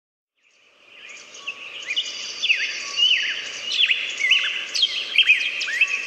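Several small birds chirping, with many quick swooping notes overlapping one another. The sound fades in over the first second or so.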